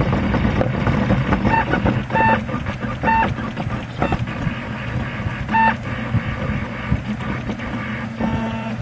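MendelMax 2 RepRap 3D printer printing: its stepper motors churn and whine as the head moves, with short higher-pitched notes on a few of the moves, over a steady low hum.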